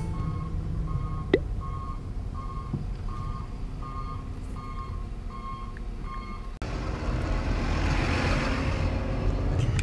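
Backup alarm of a John Deere wheel loader beeping steadily, about two beeps a second, over a low engine rumble. About two-thirds of the way through, the beeping stops abruptly and a steady rushing hiss takes over.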